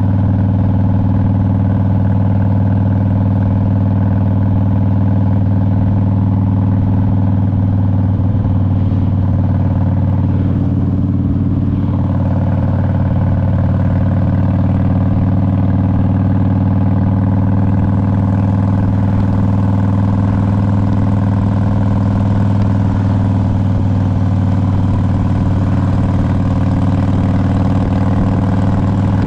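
2001 Harley-Davidson Road King's Twin Cam 88 V-twin engine running at a steady, even note, with a slight change in tone about twelve seconds in.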